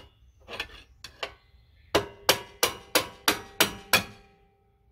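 Hammer blows on steel at the rear control arm mount of a Jeep Commander, knocking the arm loose after its nuts are off: a few light taps, then seven sharp metallic strikes about three a second, each leaving a ringing tone.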